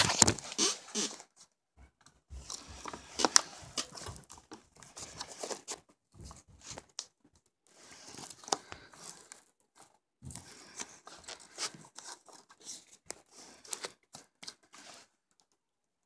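Handling noise: irregular rustling and scraping with sharp plastic clicks and knocks, in bursts with short gaps, stopping about a second before the end.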